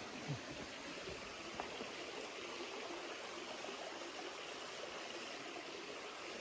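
Stream flowing, a steady wash of running water, with a brief soft thump just after the start and a faint tick about a second and a half in.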